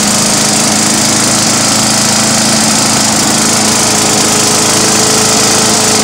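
Troy-Bilt 6.5 HP wood chipper's Briggs & Stratton Intek I/C single-cylinder engine running steadily at speed, with a constant hum and hiss.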